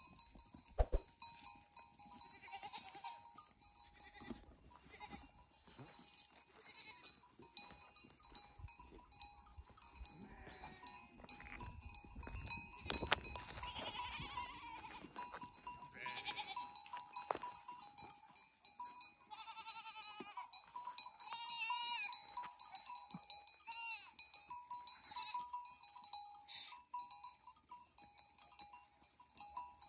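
A flock of sheep and goats bleating now and then, with animal bells clinking and ringing among them.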